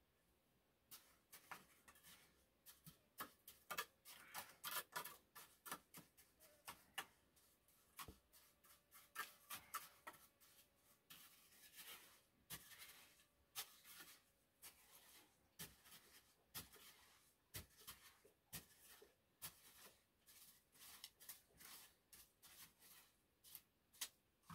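Light, irregular taps and clicks of hard objects, about one or two a second, with a faint steady hum underneath.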